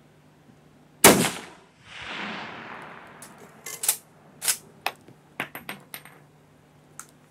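A single shot from a Schmidt-Rubin K11 straight-pull rifle in 7.5x55 Swiss, fired about a second in, followed by a long rolling echo. Then a series of sharp metallic clicks as the straight-pull bolt is worked to eject the case and chamber the next round.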